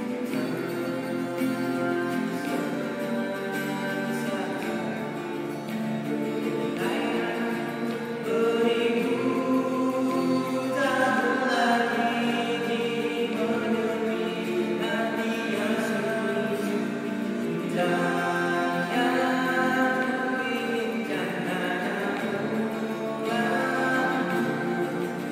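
Two acoustic guitars strummed and picked together, with a man singing a slow melody over them; the voice comes in strongly about a third of the way through.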